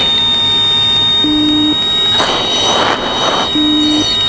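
The U-2's audible angle-of-attack tones in the cockpit intercom: two short low beeps, each about half a second long, about a second and a half and three and a half seconds in, over a steady high tone and the cockpit's steady noise. A brief hiss comes about halfway through.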